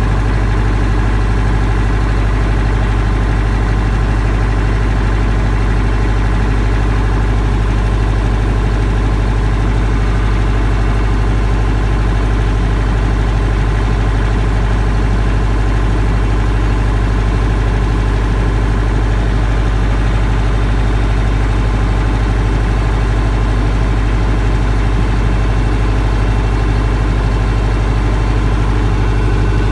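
Trident 30 kW three-phase diesel generator running steadily, its engine holding a constant low hum with no change in speed.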